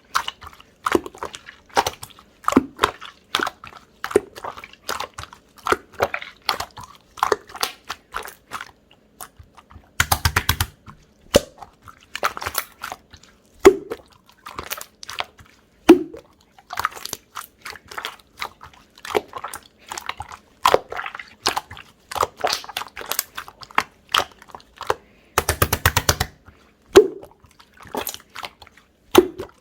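Opaque, chewy slime being squished and pressed by hand: a steady run of sticky clicks and small air-bubble pops, with two longer spells of rapid crackling, about ten seconds in and again about twenty-five seconds in.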